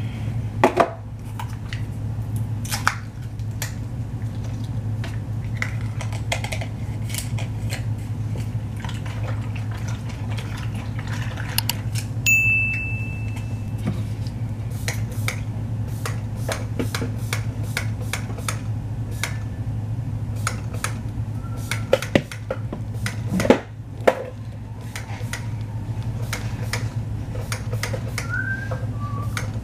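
Clicks, knocks and light clinks of hair-product containers being handled, a jar and a spray bottle, over a steady low hum. A short high ding sounds about twelve seconds in.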